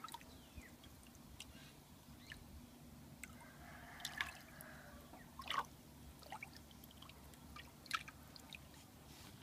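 Water splashing and dripping as a hand scoops water from a tank and lets it run back through the fingers, in scattered drips and small splashes, the loudest about four, five and a half, and eight seconds in.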